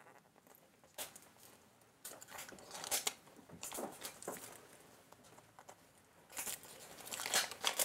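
Wrapper of a toy surprise egg being torn and crinkled open by hand, in several irregular crackling bursts that grow busier near the end.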